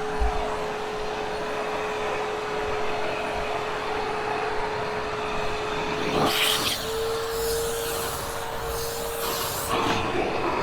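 Hoover HushTone vacuum cleaner running with a steady motor whine while vacuuming hair-laden carpet. About six seconds in there is a rush of air and the whine steps slightly higher in pitch for a few seconds, with another rush near the end.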